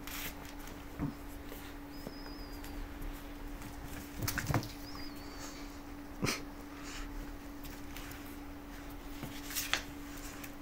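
A dog worrying a plush toy: faint scuffling, mouthing and knocking noises at irregular moments, with two brief, thin, high squeaks about two and five seconds in, over a steady hum.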